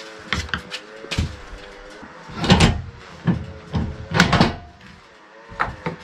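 Cut wooden slabs and blocks being handled and set down on the sawmill bed: a series of wooden knocks and clatters, loudest about two and a half and four seconds in. A steady engine hum sounds underneath.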